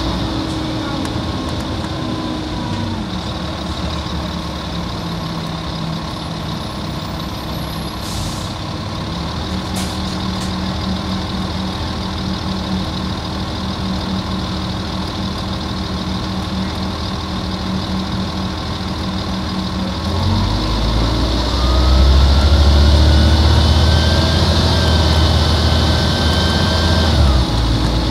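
Volvo Olympian double-decker bus with a Volvo D10A-245 six-cylinder diesel, running slowly and near idle, with brief hisses of air about eight and ten seconds in. About twenty seconds in it pulls away, the engine louder and rising in pitch under load. Near the end the pitch drops suddenly.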